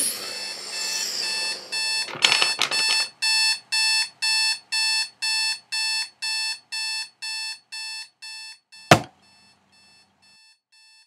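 Alarm clock beeping, even electronic beeps at about two a second that slowly fade. About nine seconds in a single sharp smack cuts in, the loudest sound, and the beeping carries on much fainter after it.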